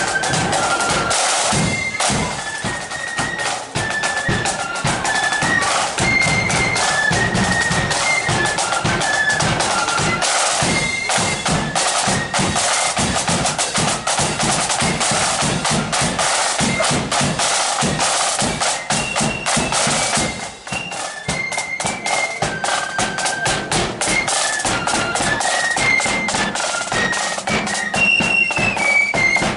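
Marching flute band playing: a high, shrill flute melody over rapid snare drum rolls and beats.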